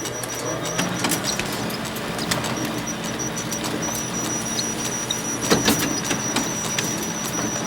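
Photocopier running: a steady motor hum with a thin high whine over a noisy mechanical rush, broken by sharp clicks of the paper-feed mechanism, the loudest a pair about five and a half seconds in.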